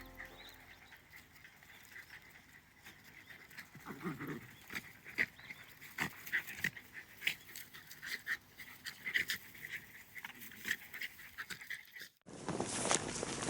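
A dog making short, irregular small sounds, several a second at times. About twelve seconds in these cut off abruptly and give way to a louder, steady rushing noise.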